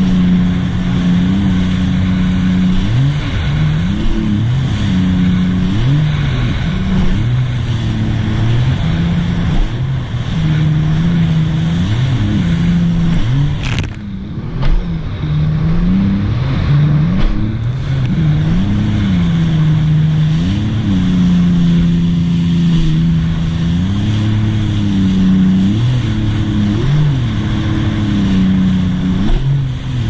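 2018 Sea-Doo RXT-X 300 personal watercraft's supercharged three-cylinder Rotax engine, fitted with a Riva Racing free-flow exhaust, running at speed on the ocean. The throttle is worked on and off, so the engine note climbs and falls every second or two. About halfway through it drops briefly.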